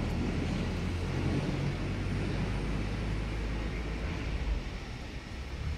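Truck engine idling: a steady low hum.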